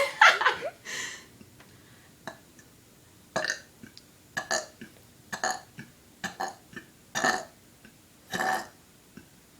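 A person burping deliberately, forcing out short burps one after another as fast as possible. The loudest come right at the start; after a pause of about two seconds the burps follow roughly one a second.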